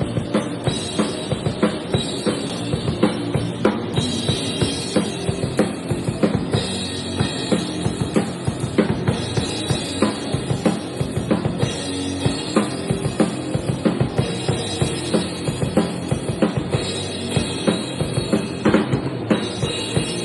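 Live rock band playing at a sound check, the drum kit to the fore with a steady stream of bass-drum and snare hits over the other instruments.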